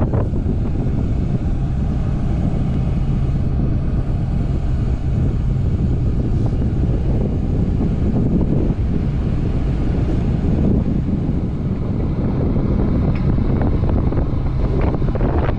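Strong wind buffeting the microphone in a steady low rumble, with an engine running steadily underneath.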